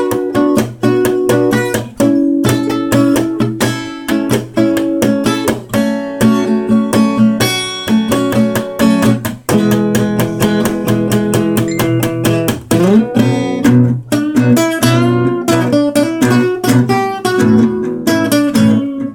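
Acoustic guitar playing an instrumental break, with quick picked notes and strummed chords. There is a rising slide about thirteen seconds in.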